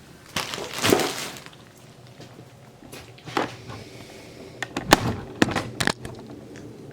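Sewing-machine parts and their plastic bags being handled and put back into a box: a rustle in the first second or so, then a few sharp clicks and knocks near the middle and toward the end.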